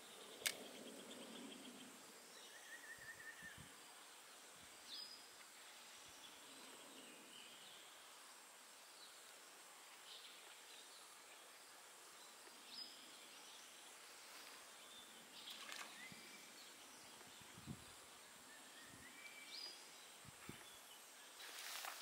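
Near silence: faint outdoor ambience with a few short bird chirps several seconds apart and a brief trill early on. There is a single sharp click about half a second in.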